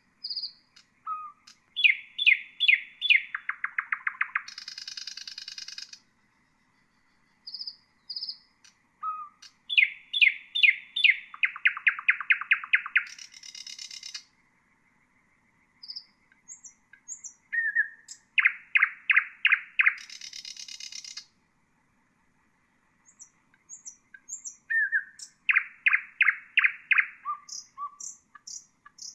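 Common nightingale singing four song phrases separated by short silent pauses. Each phrase opens with a few high thin notes, then runs into a series of loud repeated strokes, a fast even trill and a harsh buzzing end.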